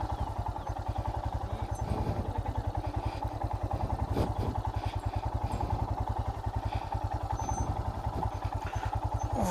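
Royal Enfield Himalayan's single-cylinder engine running at low speed with an even, rapid thumping while the motorcycle picks its way over a rough off-road track. A few knocks and rattles from the bike over the rough ground, the clearest about four seconds in.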